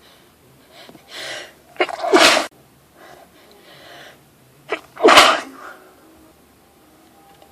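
A woman sneezing twice, about three seconds apart, each loud sneeze coming right after a short catch of breath. They are part of a nonstop sneezing fit from a badly irritated nose.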